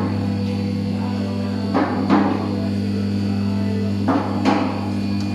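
Background music: a steady low bass drone with a pair of drum hits about every two and a half seconds.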